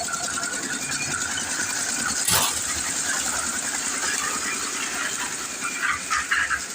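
Mini concrete lift machine running steadily, with one sharp knock a little over two seconds in.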